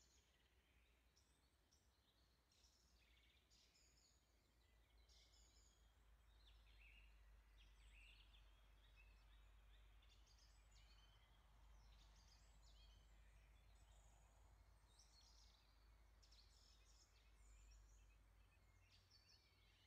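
Near silence: faint room tone with a low hum, and distant birds chirping faintly throughout.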